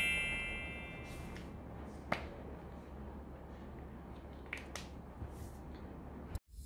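A bright chime sound effect, played as an on-screen product caption appears, rings on and fades away over the first second. It gives way to a low steady room hum with a few faint clicks, and the sound drops out briefly just before the end.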